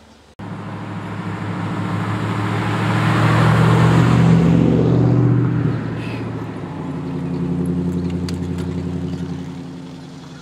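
Motor vehicle engine and tyre noise. It starts suddenly, grows to its loudest about four seconds in and eases off, then swells again near eight seconds before fading.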